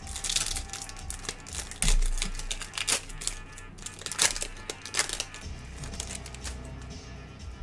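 Foil wrapper of a trading card pack crinkling and crackling as it is handled and torn open, a run of sharp crackles, with cards sliding against each other.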